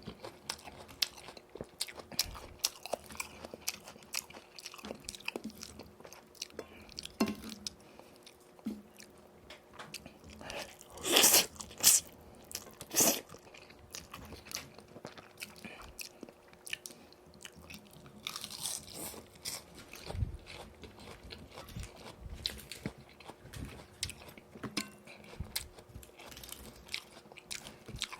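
Close-up eating sounds of boneless fried chicken (yuringi style): chewing and crunching with frequent small crackles, and a run of loud, crisp bites around the middle.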